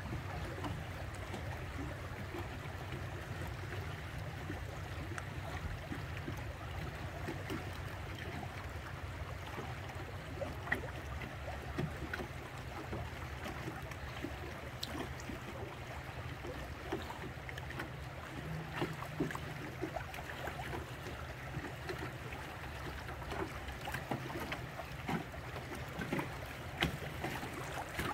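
A boat under way: a steady low engine drone, with water splashing and lapping against the hull in many small irregular splashes.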